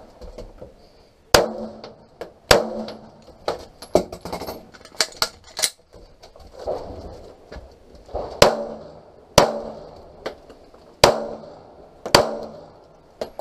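Pistol shots fired in three pairs, the two shots of each pair about a second apart. Each shot is followed by a short ring. Lighter clicks and knocks fall between the pairs.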